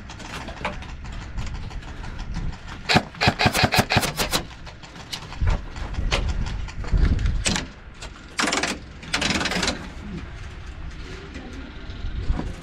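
Airsoft guns firing: a quick string of sharp shots about three seconds in, then two longer full-auto bursts around eight and nine seconds.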